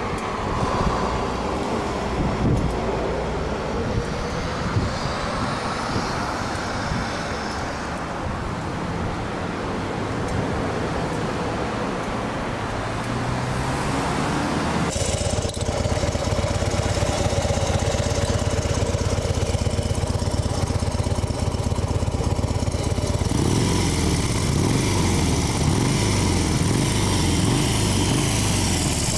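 2010 Harley-Davidson FXD Super Glide's V-twin engine running. About halfway through it becomes louder and steadier with a low pulsing beat, and near the end the pitch rises and falls. The owner is recording it for a grinding noise from the primary drive.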